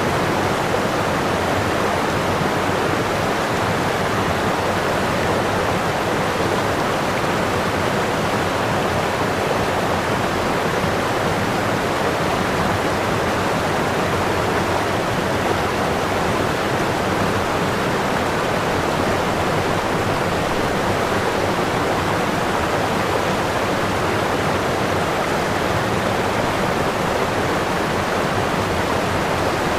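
Running water, a steady even flow without break or change.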